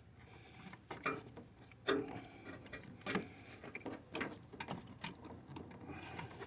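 Irregular light clicks and knocks of hands working hoses and clamps loose from a car's vapor canister purge solenoid valve.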